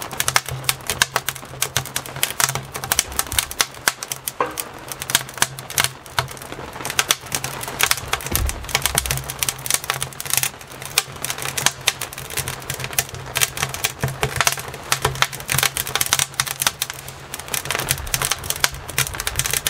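Freshly lit wood fire in a woodstove, crackling and popping as the kindling catches: a dense, irregular run of sharp snaps over a low, steady hum.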